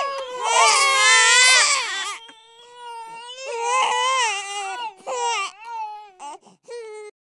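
Babies crying in high, wavering wails. One long loud wail is followed by weaker, broken cries and a few short sobs, and the crying cuts off abruptly near the end.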